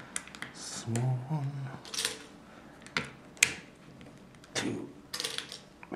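Plastic Lego tiles clicking and rattling as they are pressed onto a Lego baseplate, with irregular sharp clicks spread through.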